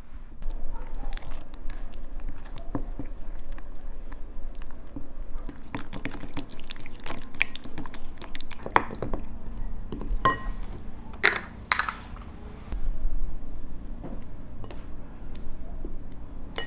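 Wooden spoon stirring a thick spice marinade in a glass bowl: irregular scrapes and taps against the glass. About ten seconds in, glass rings out in a clear clink, followed by two sharp knocks.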